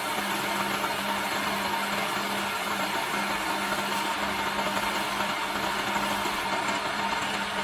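Electric-motor-driven wood lathe running with a steady hum while a hand-held turning chisel cuts a spinning wooden spindle, giving a steady hiss of the cut.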